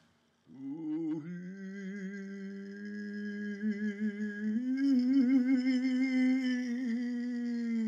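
A voice humming a slow melody. It holds a long wavering note from about half a second in, then steps up to a higher held note about four and a half seconds in.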